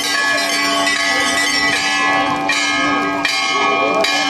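Hindu temple bells being rung: many overlapping bell tones ring on together, each renewed by a fresh strike roughly every three-quarters of a second.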